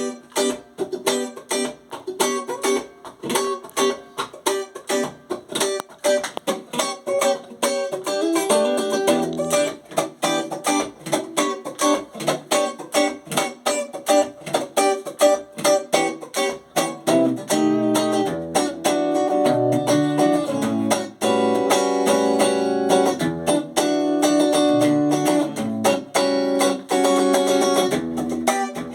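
Red Stratocaster-style electric guitar being played. It starts with quick runs of picked single notes, and from a little past halfway turns to fuller, longer-ringing notes and chords.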